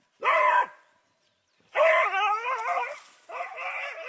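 A dog vocalising in three drawn-out, whining calls: a short one, then a longer call with a wavering pitch, then a third.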